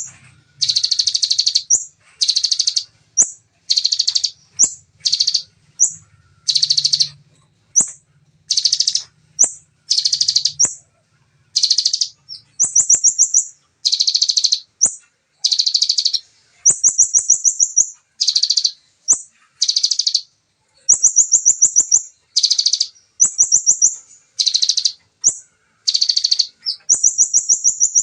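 Bar-winged prinia (ciblek) singing its rapid-fire 'tembakan' song: loud, high-pitched buzzy bursts about once a second, many ending in a fast, even trill.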